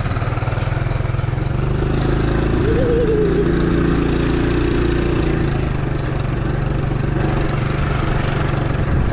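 Small motorcycle engine running steadily, with a constant rush of noise over it.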